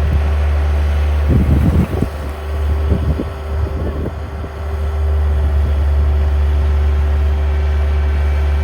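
An engine running steadily at a constant speed, with a steady low hum and tone. There are a few low thumps and rumbles between about one and four and a half seconds in, while the level dips.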